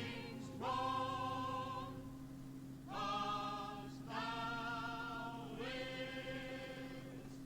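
Background music: choir-like voices singing a series of long held notes, over a steady low hum.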